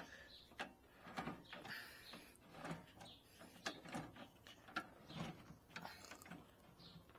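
Excalibur scroll saw's tilt mechanism being worked with its lever, giving faint, irregular metallic clicks and knocks about once or twice a second; the tilt is binding and sticks at about 15 degrees to the right.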